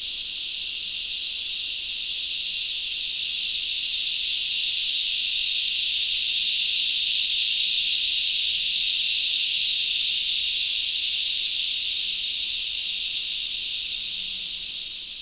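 Dense, high-pitched insect chorus buzzing steadily, swelling slowly and then fading out near the end.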